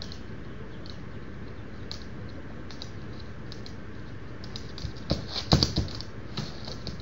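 Splash Giant Cochin rooster's toenails clicking and tapping on a slick laminate floor as he walks, with a flurry of louder scrabbling thumps about five seconds in as his feet lose traction during his courtship dance.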